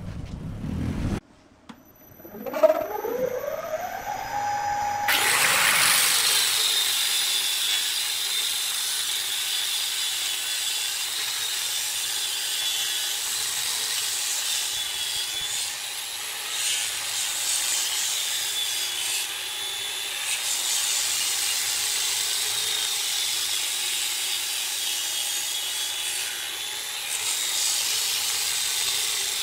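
A motor winds up with a rising whine about two seconds in. From about five seconds in, an angle grinder with a sanding disc sands the spinning wooden workpiece on a lathe, a steady rasping hiss with a high whine over it.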